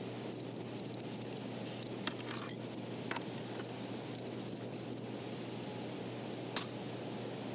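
Keys jangling and rattling as a key is worked in a Trebino electric church-bell control panel, then a single sharp click of one of its toggle switches about six and a half seconds in. A steady low electrical hum runs underneath.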